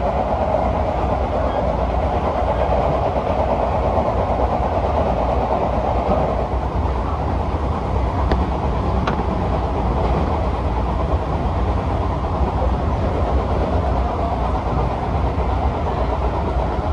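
JR Kansai Line electric commuter train running, heard from inside the passenger car: a steady rumble and rolling noise, with a couple of faint clicks about eight and nine seconds in.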